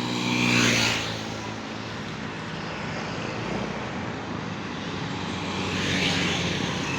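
Large diesel bus engine running as buses move past, with a steady low hum under a rushing noise that swells about half a second in and again near the end.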